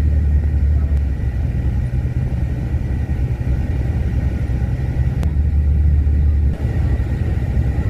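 Bus running: a steady low engine and road rumble that shifts in pitch a few times, with a thin steady high tone over it and one sharp click about five seconds in.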